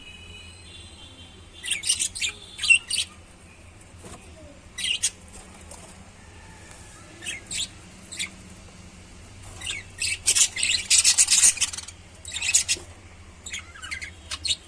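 Lovebirds chirping in short, high-pitched calls, scattered at first, then a rapid run of calls past the middle. A faint steady low hum lies underneath.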